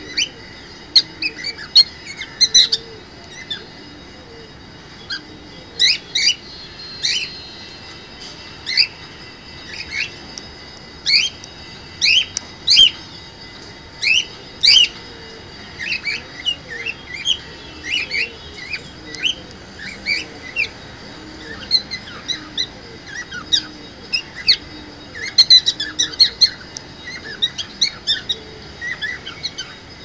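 Cockatiel chirping and whistling: short, sharp chirps in irregular bursts, several a second at the busiest moments, with brief pauses between.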